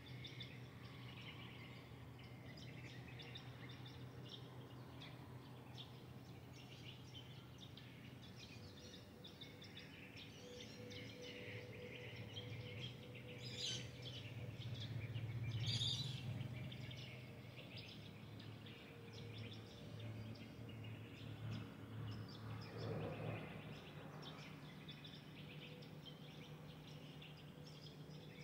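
Faint chorus of many small birds chirping at sunrise over a steady low hum. A low rumble swells to its loudest about halfway through and rises again a little later.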